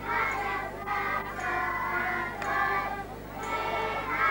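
A group of schoolchildren playing a tune together on melodicas, in short phrases.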